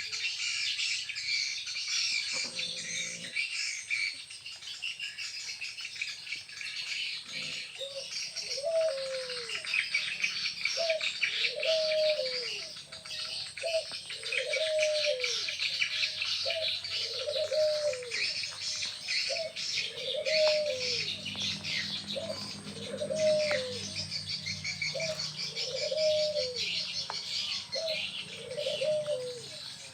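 Many small birds chirping without a break. From about a quarter of the way in, a lower call with a rise-and-fall pitch repeats steadily, about once every second and a half.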